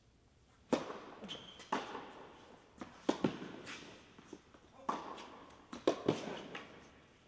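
Tennis ball being struck by rackets and bouncing on an indoor hard court during a serve and rally, each sharp pop echoing in the hall. A short high squeak comes about a second in.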